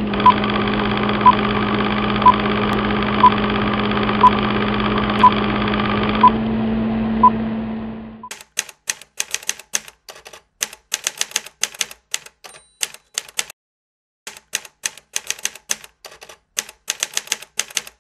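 Film countdown leader sound effect: a steady hum with a short beep once a second, eight beeps, fading out about eight seconds in. Then a typewriter sound effect, runs of rapid keystroke clicks broken by short pauses.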